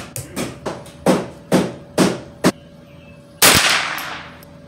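Gunshots from neighbouring shooters popping a few times a second, each with a short echo. About three and a half seconds in comes one much louder .22 rimfire shot from the Ruger 10/22 carbine, ringing on under the covered range's roof.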